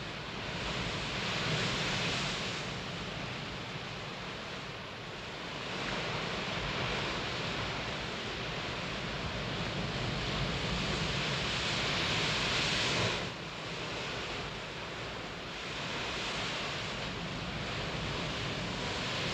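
Sea surf washing onto a beach: a hiss that swells and ebbs every few seconds, dropping off suddenly about thirteen seconds in.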